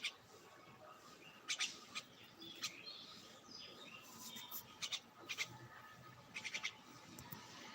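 Small birds chirping: short, high, quick notes in little clusters every second or so over faint background noise.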